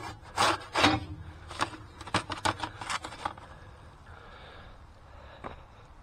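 Metal pizza peel scraping and rubbing against the floor and mouth of a wood-fired barrel oven as a pizza is slid out: a run of about seven short scrapes in the first three seconds, then quieter.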